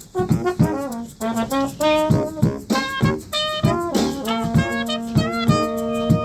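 A live brass band of trombone and baritone saxophone with drums and percussion playing a funk groove, with drum hits on a steady beat under short brass phrases, settling into a held chord near the end.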